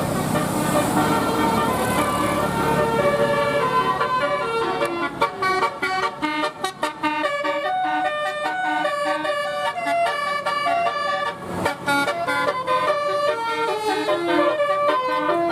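Bus telolet horn, a multi-tone musical bus horn, playing a melody of stepping notes with short breaks between phrases. Engine rumble sits underneath for the first few seconds.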